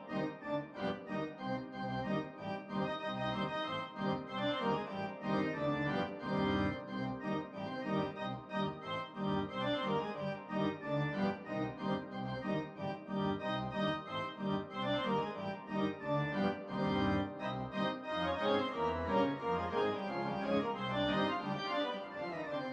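Organ music playing continuously, a busy run of quickly changing notes and chords.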